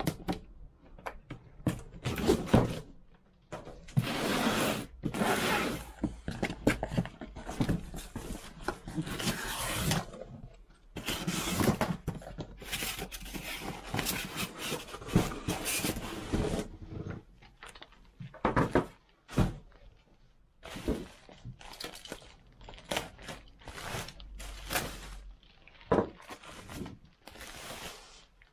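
A cardboard box being unpacked: tape slit with a utility knife, flaps pulled open, and bubble wrap rustling and crinkling as the radiator inside is pulled out and cut free. The sound comes in irregular scraping, rustling bursts with sharp clicks, thickest in the first half.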